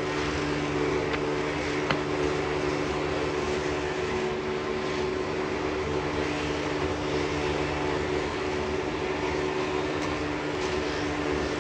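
Steady machine drone: a constant hum made of several fixed tones over an even hiss, with no change in speed or pitch.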